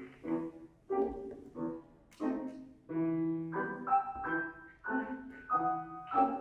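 Classical piano music: chords struck about twice a second, each ringing and fading away, with one chord held longer about three seconds in.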